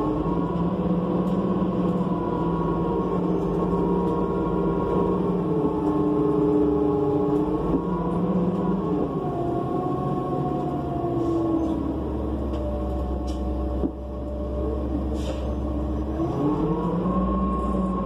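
Engine and ZF automatic transmission of a New Flyer C40LF city bus, heard from inside the cabin, its pitch rising and falling with speed as the bus drives. About two-thirds through it settles to a lower, steady rumble, then the pitch climbs again near the end as the bus accelerates.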